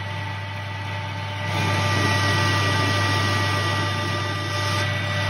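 Metal lathe running with a steady hum and several fixed whining tones from its motor and gearing. About a second and a half in, a louder hiss joins it as the tool cuts into the spinning steel work.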